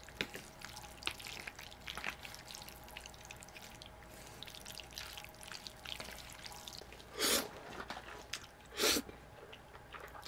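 Thick jjajangmyeon noodles in black bean sauce being mixed with chopsticks in a metal bowl: a run of small sticky, wet clicks and squelches, with two louder bursts about seven and nine seconds in.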